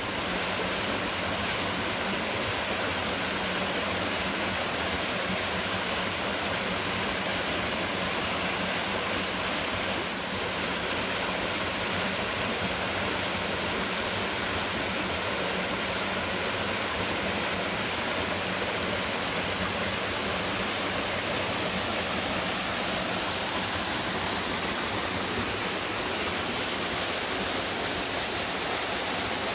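A 15 m straight-drop waterfall falling steadily: an even, unbroken rush of water.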